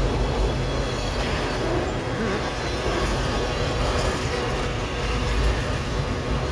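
Freight train of autorack cars rolling steadily past at close range: a continuous low rumble of steel wheels on rail.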